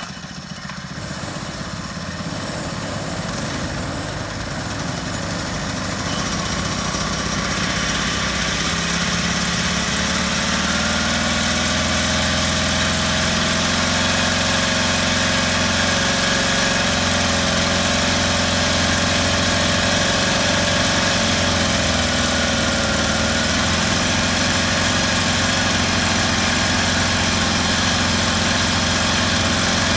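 CUKUSIN 144F outboard motor running just after starting, idling steadily. It grows louder over the first several seconds, then settles into an even run.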